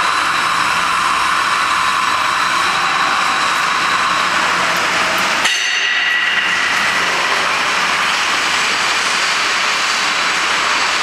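Steady, loud machinery hiss in a workshop. About five and a half seconds in, a single metallic clink rings briefly as a stainless steel cover panel is set down on the mould station.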